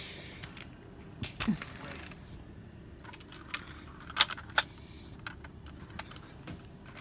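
Handling noise: a scattered series of sharp clicks and taps from small hard objects, the two loudest a little past four seconds in, over a faint rustle.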